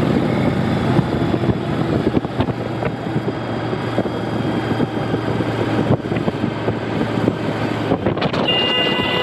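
Cruiser motorcycle engine running while riding along, with wind buffeting the microphone. Near the end a vehicle horn starts sounding one long steady note.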